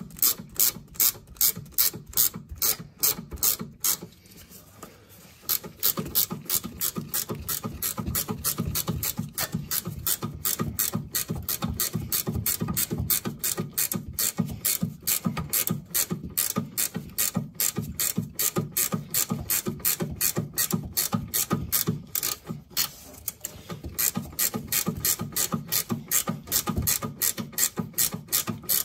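Ratcheting 14 mm wrench clicking steadily, about three clicks a second, as it runs a nut down loosely before it is snugged. The clicks pause briefly twice.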